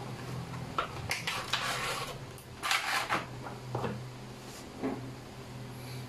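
Unboxing handling: a cardboard box being opened and a bagged PoE adapter with its power cord pulled out and set down on a wooden desk, a run of irregular rustles and knocks. A steady low hum runs underneath.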